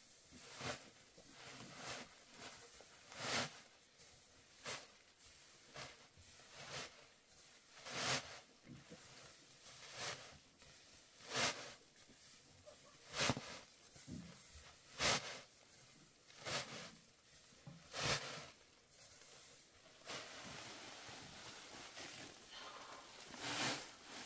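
Chopped straw and a woven plastic feed sack rustling and crinkling as straw is scooped and stuffed into the sack by hand, in short bursts about once a second, giving way to a steadier rustle near the end.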